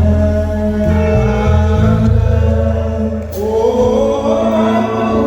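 A group of singers holding a harmony over deep bass notes that change about once a second, with one voice sliding up in pitch a little past halfway.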